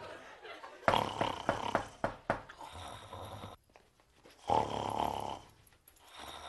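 A person snoring loudly: a long rasping snore about a second in and a second one about four and a half seconds in.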